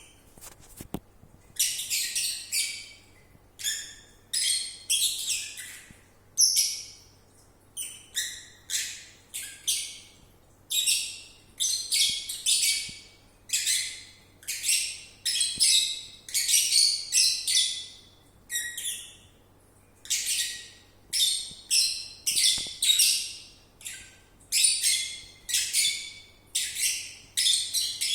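A lovebird snoring and whistling in its sleep: a steady series of short, high, squeaky wheezes, about one or two a second, each swelling and then cutting off.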